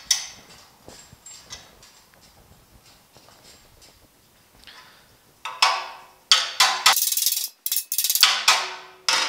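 A single clank, then from about five and a half seconds in a quick run of loud hammer blows on steel with short ringing. The steel is the sheet-steel bracket of a bumper splash apron, clamped in a C-clamp against angle iron while a kink is pinched back straight.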